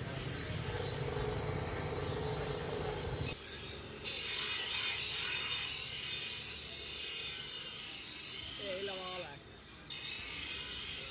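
Tool work on a grass-cutter machine blade: a low steady machine hum for about three seconds, then a sharp click and a steady high hiss of metal being worked, which breaks off briefly near the end.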